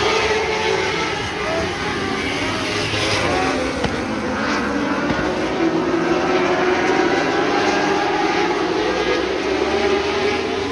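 Several winged lightning sprint cars racing on a dirt oval, their engines running hard together, the pitch of each rising and falling as they throttle through the turns and down the straights.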